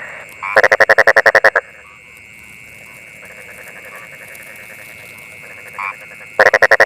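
A frog calling in bouts of rapid, evenly pulsed croaks, about a dozen pulses a second. One bout of about a second comes half a second in and another starts near the end, over a steady high-pitched background drone.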